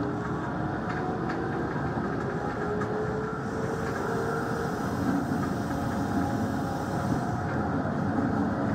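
Hanshin 5500-series electric train running along the line, heard from inside just behind the cab: a steady rumble of wheels and running gear, with faint whining tones that slowly glide in pitch.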